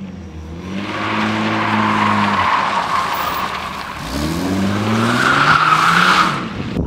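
Jeep Grand Cherokee driven hard through a sharp turn, its tyres squealing over the revving engine. The engine note drops about two and a half seconds in, then climbs again from about four seconds as the tyres squeal louder, and the sound cuts off just before the end.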